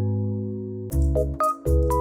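Background music: held keyboard chords over a bass line. A new chord and a light beat come in about a second in.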